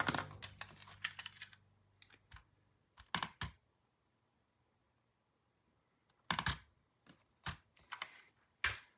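Scattered sharp clicks and taps of small mouse parts being handled and fitted while a Logitech G Pro mouse is put back together. There is a few-second pause in the middle.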